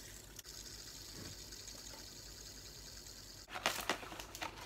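Fidget spinner spinning with a faint, steady whirring hiss. About three and a half seconds in, quick crinkling and rustling as a paper box is handled and opened.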